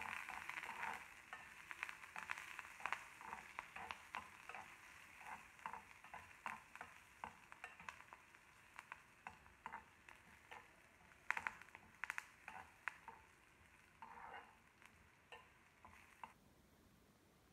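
A metal spoon stirs and scrapes a tempering of onions, curry leaves and chillies frying in oil in a hammered metal kadai. Quiet sizzling runs under many irregular scrapes and taps of the spoon against the pan. It all stops near the end.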